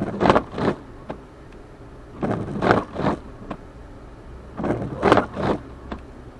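Inside a car driving through a blizzard: a low steady rumble with loud scraping swooshes that come in pairs or threes about every two and a half seconds.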